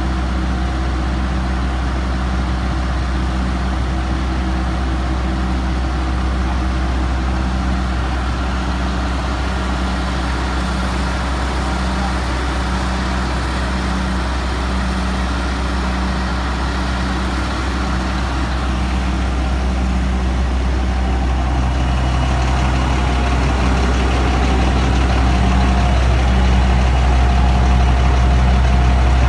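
Sewer-flushing jetter truck's engine running steadily while it powers the jetting pump, a deep drone with a faint regular pulse. About two-thirds of the way through the pitch changes and the sound grows a little louder.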